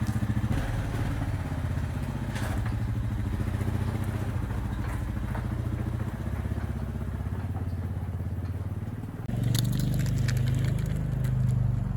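An engine running steadily, growing louder about nine seconds in.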